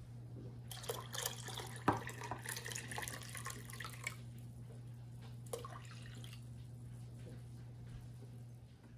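Clear liquid poured from a glass measuring cup into a stainless steel saucepan of broth, splashing and trickling for about three seconds, with a sharp knock about two seconds in. A short click follows a little later, over a steady low hum.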